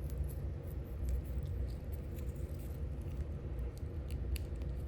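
Faint clicks and light handling noises of small plastic fishing tackle being worked by hand, as a bobber stopper is threaded onto the line of a catfish rig, over a steady low rumble.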